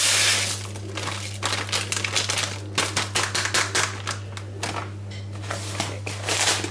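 Coarse sea salt poured from a plastic bag into a plastic measuring jug: a rush of pouring grains at the start, then the plastic bag crinkling and scattered ticks of grains as the rest is shaken out.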